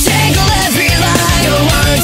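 Loud nightcore rock track: a rock song sped up and raised in pitch, with a steady driving beat.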